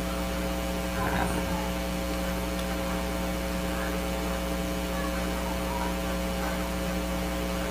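Steady electrical mains hum, a low buzz with several overtones held at an even level.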